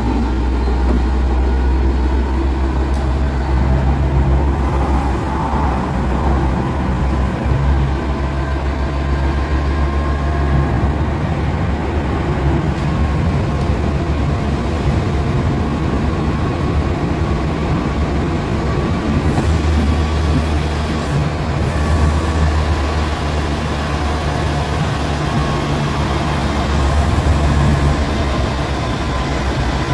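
Cologne line 16 light-rail (Stadtbahn) car running, heard from inside the passenger compartment: a steady low rumble from the running gear, with faint whining tones above it.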